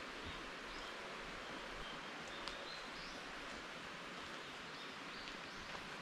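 Steady outdoor hiss of forest ambience with a few faint, short, high bird chirps scattered through it and a light click about two and a half seconds in.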